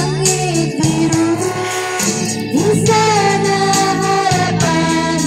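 A woman singing karaoke into a microphone over backing music, holding long notes.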